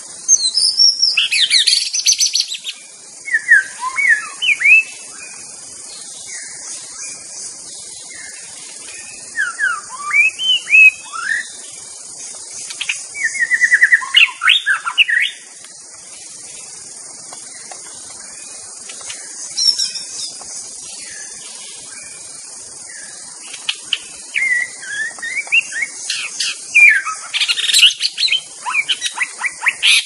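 White-rumped shama singing: bursts of varied, quickly sweeping whistled phrases, rising and falling in pitch, with pauses of a few seconds between them, over a steady high hiss.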